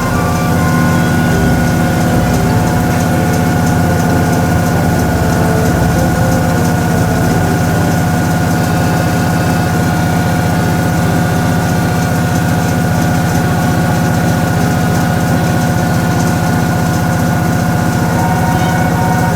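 Toshiba ZABOON top-loading washing machine running, a steady motor hum with a whine held on one pitch.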